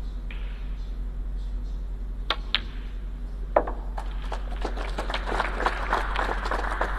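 Snooker cue striking the cue ball, then clicks of ball on ball and a louder knock about three and a half seconds in. Audience applause follows from about four seconds and builds toward the end, greeting the pot.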